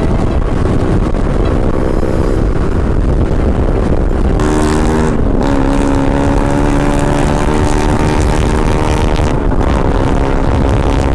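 Yamaha NMAX scooter's single-cylinder engine running steadily at high road speed, close to 100 km/h, with a constant wind rush on the microphone. The engine note dips briefly and picks up again about nine and a half seconds in.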